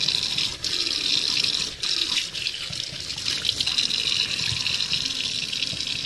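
Kitchen tap running a thin, steady stream into a stainless steel sink, splashing on the bowl and drain strainer as a hand rinses around it, with a few brief splashes.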